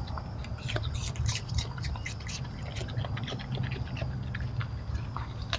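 Raccoon eating birdseed and fruit from a clay saucer: a quick run of crunching, clicking bites, busiest in the first half and sparser after.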